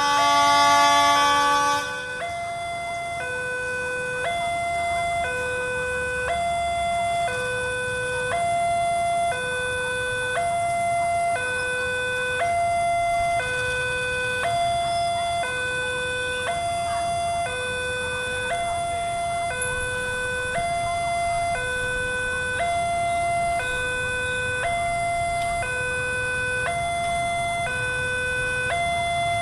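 A loud held horn chord for about the first two seconds, then a level crossing's electronic warning alarm sounding alternating high and low tones, each held under a second, over and over.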